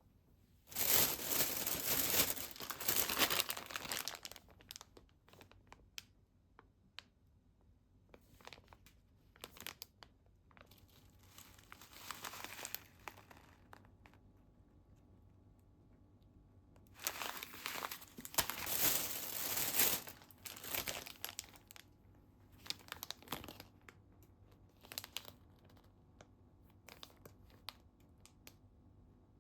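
Packaging being handled and opened, crinkling and tearing in three long spells, with light clicks and taps in between.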